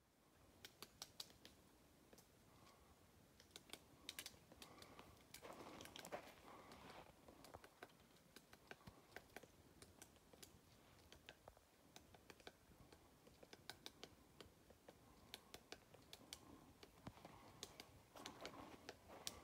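Faint, irregular tapping of a woodpecker pecking at a pine trunk, with a couple of soft rustles.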